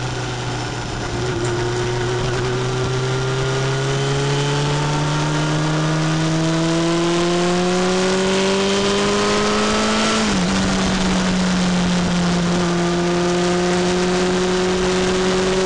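Motorcycle engine pulling steadily, its pitch rising slowly for about ten seconds, then dropping at an upshift and holding steady, with wind and road rush.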